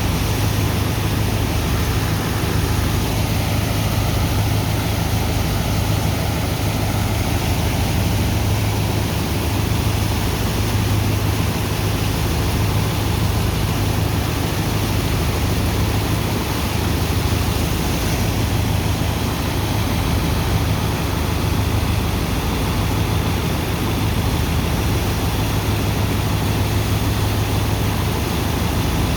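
Sand dredger's engine and pump running steadily while unloading sand: a low drone under a constant rushing hiss of water and sand.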